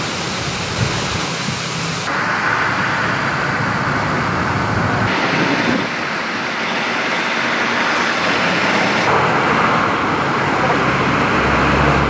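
Steady outdoor street noise with distant traffic: a constant hiss that shifts abruptly in level and tone a few times.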